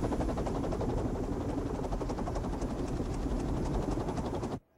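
Small wind turbine rotor spinning fast in a stream of air, a steady whirring with a rapid regular beat from its blades. It cuts off suddenly near the end.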